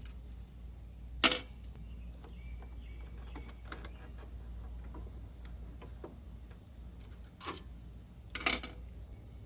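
Scattered clicks and knocks of hands handling parts and tools, with a sharp click about a second in and two more near the end, over a faint steady hum. The engine is not running.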